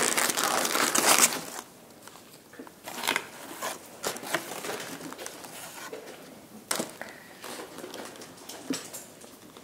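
White paper takeout bag crinkling and rustling as pieces of fried food are pulled out of it by hand. It is loud for the first second and a half, then gives way to softer, scattered rustles and short clicks.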